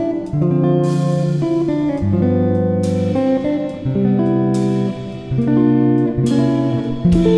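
Instrumental background music: plucked string notes over held low notes, changing about once a second.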